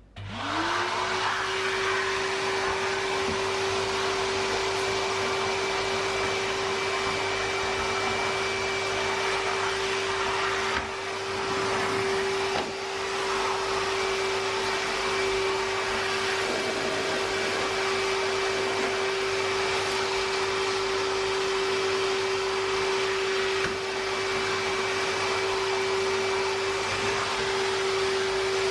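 Canister wet-and-dry shop vacuum switched on, its motor spinning up with a quick rising whine and then running steadily, with a couple of brief dips in its sound about halfway through.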